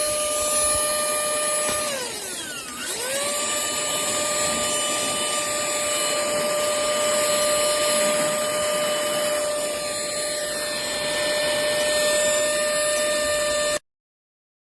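Nikocreos cordless handheld mini vacuum running with a steady high motor whine. About two seconds in its pitch sags sharply and then climbs back. The sound cuts off suddenly near the end.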